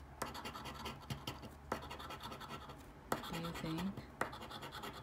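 A coin scraping the coating off a paper lottery scratch-off ticket in rapid, repeated strokes.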